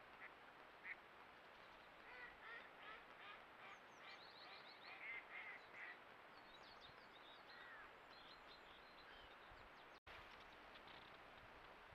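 Geese honking faintly, a run of repeated calls between about two and six seconds in.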